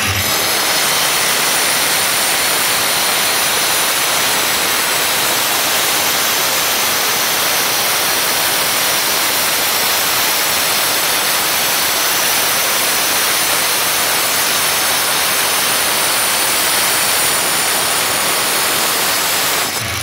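Makita angle grinder with a grinding cutter blade cutting and grinding a stone slab: a steady, loud hissing grind with no break, dipping briefly near the end.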